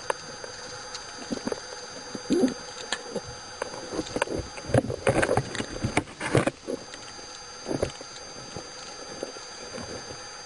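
Underwater knocks, clicks and scraping noises from a speared conger eel struggling on the spear shaft and line against a wreck. They come irregularly and are busiest about five to six and a half seconds in, over a steady faint hiss.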